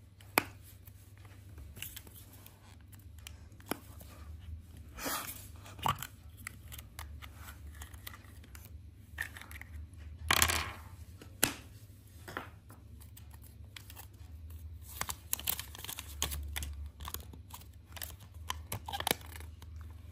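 Close-up handling of a Kinder Surprise's yellow plastic capsule, its small plastic toy figure and folded paper leaflet. A sharp click comes about half a second in, as the capsule is twisted open. Scattered rustles of the paper leaflet being unfolded and small plastic clicks follow.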